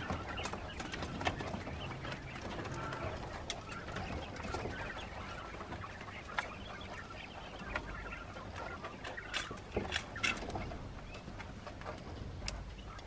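Flock of young quail chirping softly, with a few short sharp clicks scattered through.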